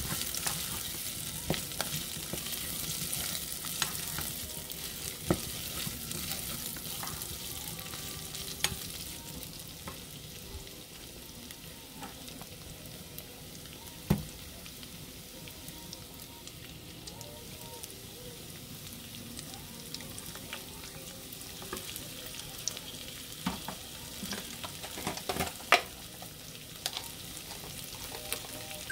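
Pork pieces with sliced onion and carrot sizzling in a pot, stirred with a spoon, in a steady hiss. A few sharp knocks stand out, the loudest near the end.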